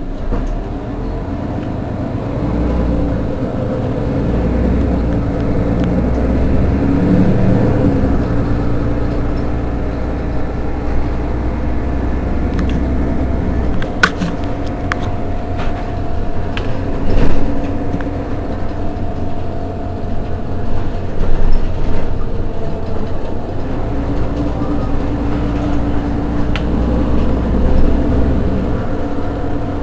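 Mercedes-Benz Citaro G C2 Euro 5 articulated bus's diesel engine idling steadily while the bus stands with its doors open. The low rumble swells twice, once in the first seconds and again near the end, and a few sharp clicks fall around the middle.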